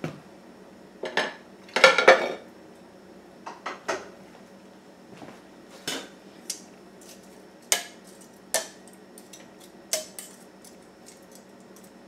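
Metal kitchen tongs clinking and scraping against a crock pot insert and a plate as chicken pieces are moved in: a string of sharp clinks a second or so apart, the loudest clatter about two seconds in.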